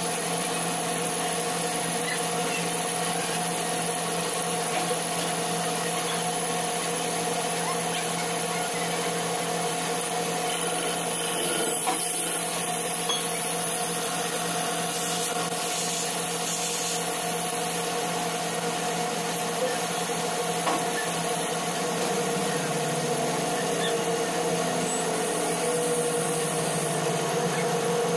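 CNC lathe turning a metal cylinder: the spindle runs steadily while the insert tool cuts along the workpiece, a continuous machine hum with steady whining tones and a high hiss of cutting.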